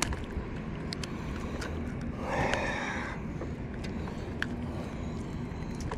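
Light scattered clicks of a hook and line being handled while a freshly caught bass is unhooked, over a steady low rumble. About two and a half seconds in, a short loud snort of breath from the angler.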